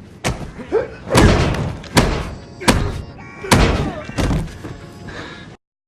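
A run of about six heavy thuds and slams, a bit under a second apart, with short cries between them: fight-scene blows in a film soundtrack. The sound cuts off abruptly near the end.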